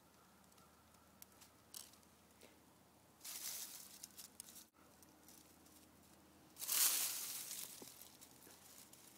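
Two bursts of rustling and crunching, one about three seconds in and a louder one near seven seconds in, with scattered light clicks between them.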